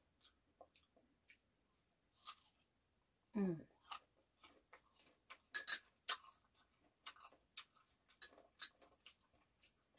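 Close-miked chewing of diced persimmon pieces: a string of small mouth clicks and lip smacks, with one short falling hum about three and a half seconds in.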